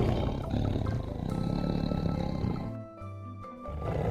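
Tiger roaring: one roar fading out over the first couple of seconds, then a second roar starting near the end, over soft background music.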